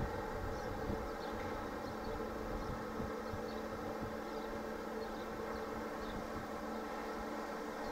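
Steady electric buzzing hum of a standing Czech Railways class 471 double-deck electric multiple unit, its onboard converters and auxiliaries running, with several fixed steady tones over a low rumble. A few faint short high chirps come through on top.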